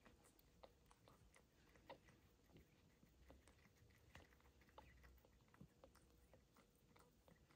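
Faint, irregular wet clicks and smacks of a mother cat licking her newborn kitten clean.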